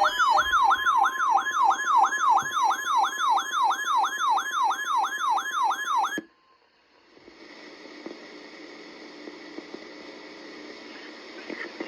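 An electronic warbling alarm tone, sweeping up and down about three times a second over a steady tone near 1 kHz, cuts off suddenly after about six seconds. After a brief silence comes the steady hiss of a weather radio receiver's static.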